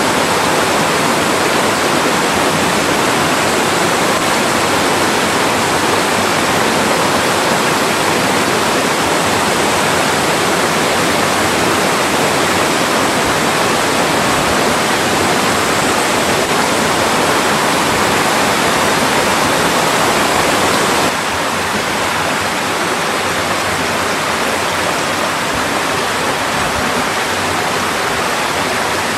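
Mountain stream rushing steadily over rocks, a dense even wash of water noise. It drops a little in level abruptly about three-quarters of the way through.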